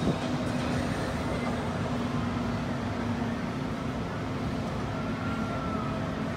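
Sledge Hammer thrill ride cycling empty on test, its arms turning: a steady low hum under a wash of outdoor noise. It runs quietly, which is taken as a good sign of its newly rebuilt electronics, pistons and mechanics.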